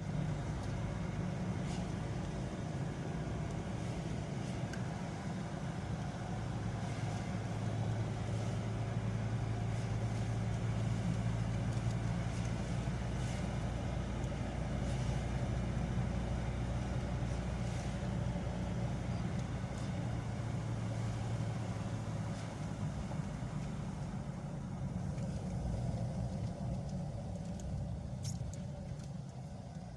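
A motor vehicle running steadily: a low, even engine drone with only slow swells in loudness.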